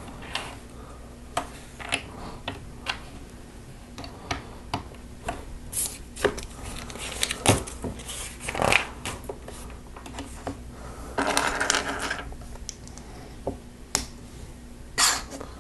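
Small plastic Lego pieces clicking and clattering as they are handled and pressed together: a string of sharp separate clicks, with a longer rattle about eleven seconds in.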